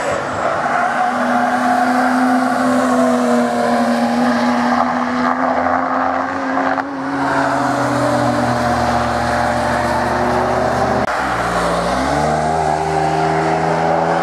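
BMW E36 3 Series cars driven hard on a racetrack, their engines running at steady high revs. About eleven seconds in the engine note drops sharply and then climbs again.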